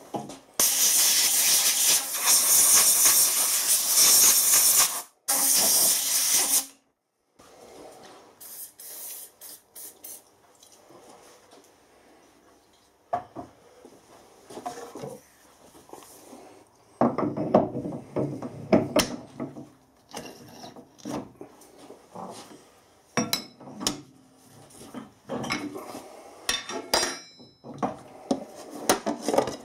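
Two long, loud hisses, the first about four seconds long and the second under two. Then metal clunks, knocks and clicks as a heavy three-jaw chuck is handled and fitted onto the lathe spindle nose.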